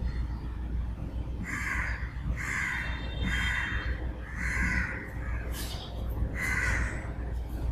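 Crows cawing repeatedly: about six harsh caws, roughly one a second with a gap in the middle, over a steady low hum.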